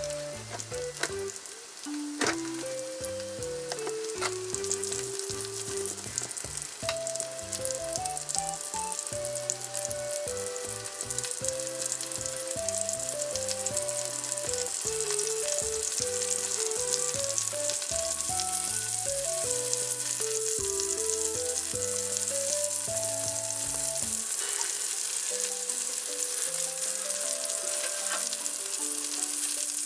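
Chicken tenderloin strips sizzling in oil in a frying pan, the sizzle growing steadily louder. Light background music with a simple melody plays over it and stops about three quarters of the way through; a few light clicks come in the first few seconds.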